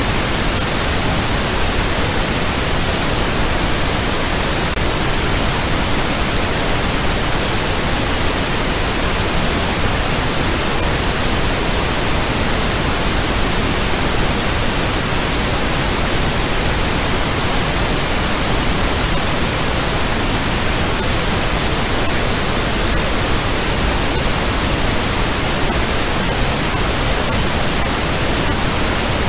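Steady, unchanging synthetic noise hiss, like static, spread evenly from low to high pitch at a constant level.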